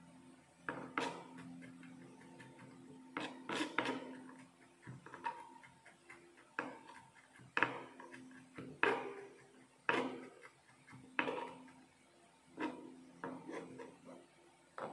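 Chef's knife chopping through minced carrot onto a plastic cutting board: sharp knocks roughly once a second, sometimes two or three close together, over a faint steady hum.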